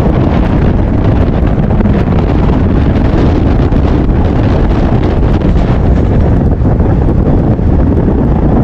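Strong wind buffeting the microphone with the rumble of a fast-moving train, a loud, steady rush with no break.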